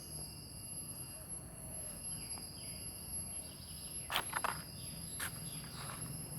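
Insects, high-pitched and steady, in a wooded setting, with a few sharp clicks about four and five seconds in.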